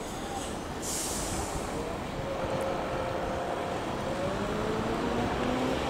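Airbus A330-200 jet airliner on final approach with gear down: a steady jet rumble with a faint wavering hum, growing louder as the aircraft comes closer.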